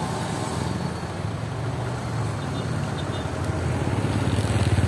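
Yutong coach bus engine running as the bus drives past, a low throbbing hum that grows louder as it comes alongside near the end.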